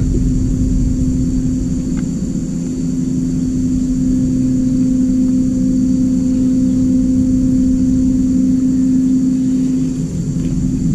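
A steady electric motor hum over a low rumble, cutting off about ten seconds in.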